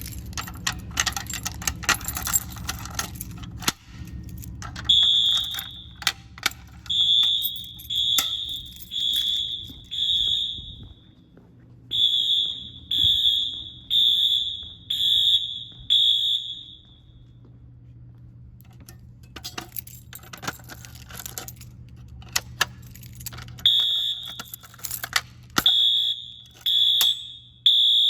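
Wheelock MT fire alarm horns sounding short, high beeps about a second apart, in three runs with pauses between: the audible walk-test signal from a Simplex 4020 panel when a device is tripped. Rattling and clicking of handled hardware is heard with them, most of all at the start.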